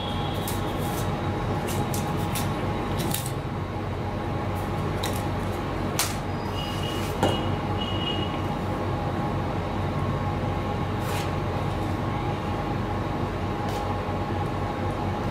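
Steady low rumbling background noise with a constant hum, and a couple of light clicks about six and seven seconds in.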